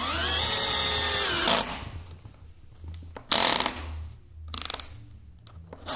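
Cordless drill-driver motor whining and rising in pitch as it drives a floorboard screw into a wooden floorboard, stopping about a second and a half in. Two short noisy bursts follow a little later.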